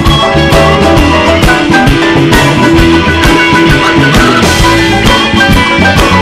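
Live band and orchestra playing an instrumental blues passage, guitars over a steady drum-kit beat.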